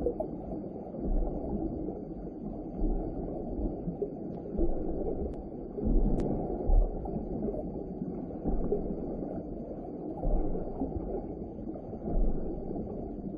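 Muffled water noise heard through a submerged camera, with low rumbling swells every second or two.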